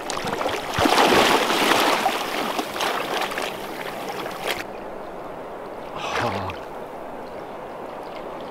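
River water splashing and sloshing, loudest about a second in, then a softer rush that drops away sharply about halfway, with one short splash near six seconds.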